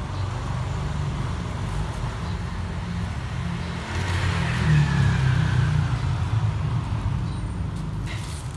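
A motor vehicle passing close by: a low engine and road rumble that swells to its loudest about halfway through, then eases off.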